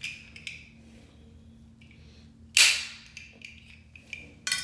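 A plastic break-off section of a Fluidmaster dual-flush push-button kit snapped off by hand: one sharp crack about two and a half seconds in, with light plastic clicks of handling before and after.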